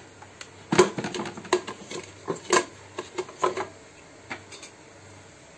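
Kitchenware being handled at a multicooker: a quick series of sharp clicks and knocks, clustered over about three seconds, then one more.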